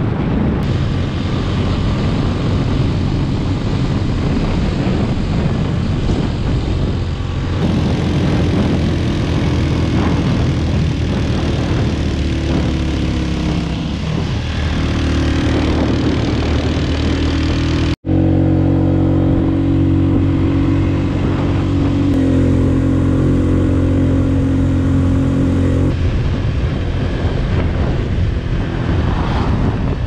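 Motorcycle engine running at a steady pace with wind and road noise, heard from on the bike while riding. The engine note changes at a few points, and the sound cuts out for an instant about two-thirds of the way through.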